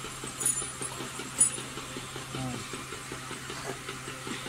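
Steady low electrical hum with a light flutter, broken by two short clicks about half a second and a second and a half in, and a brief voice a little after two seconds.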